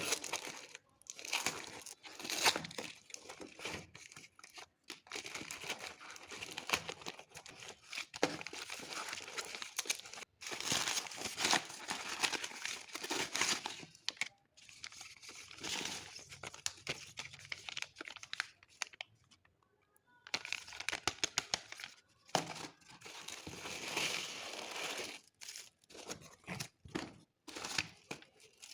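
Packaging being unwrapped by hand: irregular crinkling and tearing in bursts with short pauses, with a longer lull about two-thirds of the way through.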